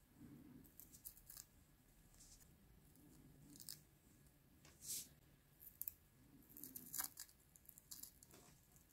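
Faint scattered ticks and crackles of metal tweezers picking at a bearded dragon's dry shed skin, lifting and tearing it off the scales; the loudest come about five and seven seconds in.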